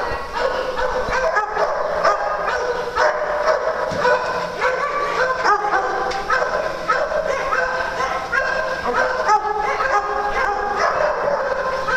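A group of dogs barking and yipping all at once, a continuous overlapping din of short barks with no pause.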